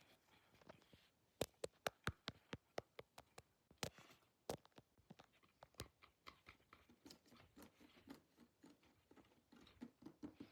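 Quiet, quick taps and clicks of hands handling small plastic unboxing pieces, irregular and closely spaced, with faint rustling between them.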